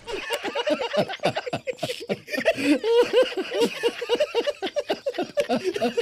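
Several men laughing together in quick, overlapping bursts.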